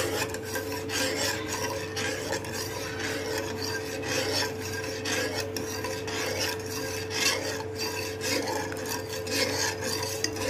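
Steel ladle stirring and scraping around a metal pot of hot agar-agar liquid, in a quick run of rasping strokes as freshly added sugar dissolves. A steady hum runs underneath.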